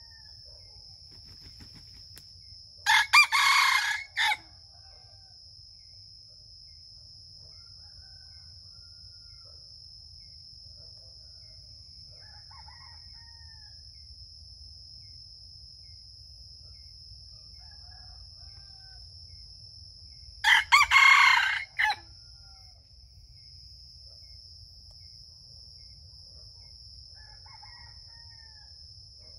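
A rooster crowing twice, once about three seconds in and again about twenty seconds in, each a short, broken crow of about a second and a half. Between the crows come soft short chirps and clucks, over a steady high insect drone.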